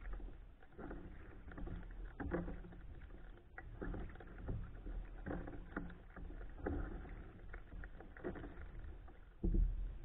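Kayak paddle strokes on calm water: the blade dipping and pulling through the water with splashing and dripping, about one stroke a second, with a louder bump near the end.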